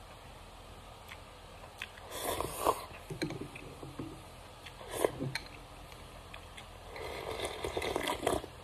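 Close-up eating sounds: noodles slurped and chewed, with a few light clicks of chopsticks against a ceramic bowl. Near the end comes a longer slurp as broth is drunk straight from the bowl.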